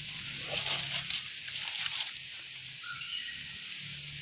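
Forest ambience: a steady high hiss with a faint low hum beneath it, light rustles of dry leaves, and a short chirp about three seconds in.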